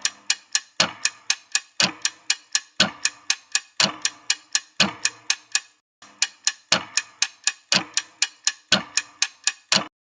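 Clock-like ticking, about four sharp ticks a second with a heavier tick once a second, like a quiz countdown timer. It breaks off briefly about six seconds in, resumes, and stops just before the end.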